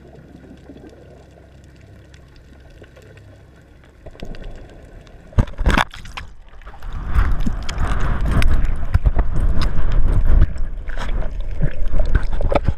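Seawater sloshing and splashing around a GoPro action camera at the surface. It is loud and buffeting from about seven seconds in, after a few seconds of faint hiss and a couple of sharp knocks.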